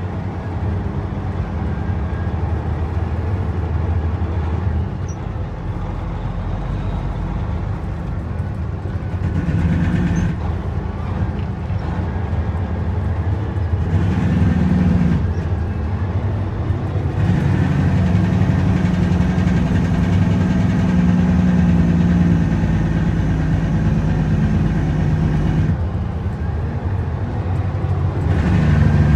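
Heavy dump truck's diesel engine heard from inside the cab as the truck drives down a dirt hill road. The engine runs steadily, and its note rises and falls several times.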